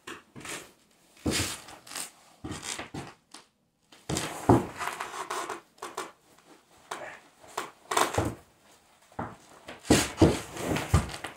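A string of short rustling and scraping bursts with a few sharper knocks, from a person in a heavy work jacket handling and shifting a wolf carcass on a shed floor.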